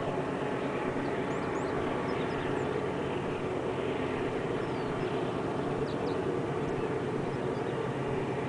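Five GE diesel locomotives (two ES44 'GEVO' units and three Dash 9s) working hard to haul a heavy double-stack freight train uphill, heard from a distance as a steady, deep engine drone.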